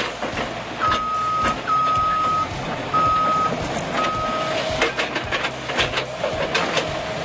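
Heavy machine's reversing alarm sounding four steady beeps at one pitch, followed by a run of sharp knocks and cracks over the machine running.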